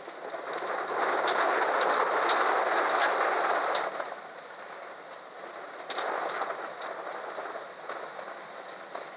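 Wooden spatula and metal ladle stirring and turning fried rice in a wok over a gas flame: scraping with scattered clicks against the pan, loudest for about three seconds near the start and again briefly past the middle. Heavy rain runs steadily underneath.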